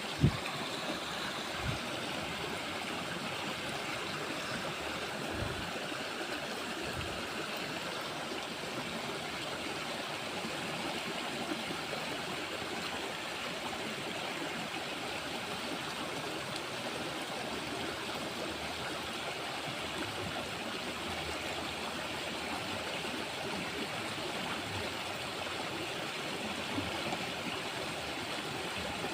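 Steady rush of flowing stream water, with a sharp knock just at the start and a few faint low thumps.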